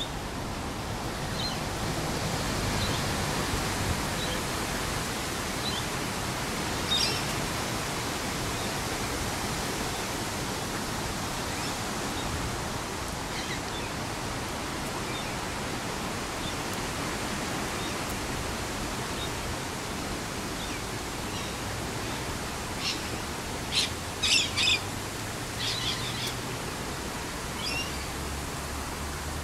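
Steady outdoor noise with birds chirping now and then: a single call about a quarter of the way in and a quick run of several sharp chirps near the end.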